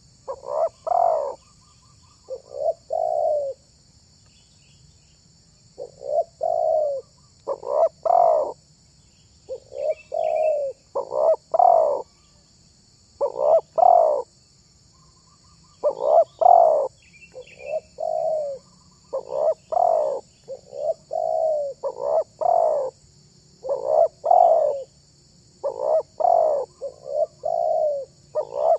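Spotted dove (tekukur) cooing over and over in short phrases of two to four coos, with brief pauses between phrases. Faint chirps of small birds are heard now and then.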